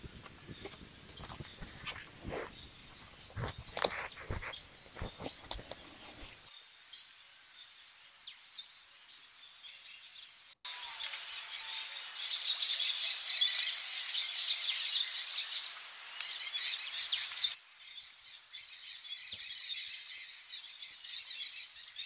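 Amazon rainforest ambience: a steady high drone of insects with bird chirps. In the first few seconds, scattered crackles and clicks, fitting a small wood fire under fish on a grill; a little over ten seconds in, a louder stretch of bird and insect chirping starts suddenly and cuts off abruptly about seven seconds later.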